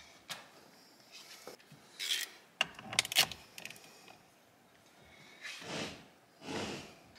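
Hands working a plastic wiring connector loose in a steering-wheel hub: small plastic clicks and rubbing, with a cluster of sharp clicks about three seconds in, then two longer rubbing sounds near the end.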